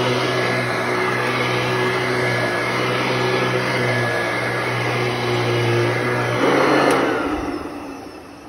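A 1991 Royal 882T upright vacuum with a metal fan runs steadily on carpet, a loud hum over a strong low drone. About six and a half seconds in it gives a brief louder rush. Then the motor winds down with a falling whine as it is shut off.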